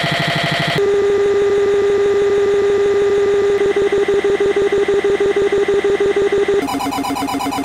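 Electronic music: harsh, buzzing synthesizer drones held in blocks, jumping to a new pitch about a second in and again near the end, with a fast pulsing throb of about seven beats a second in the middle stretch.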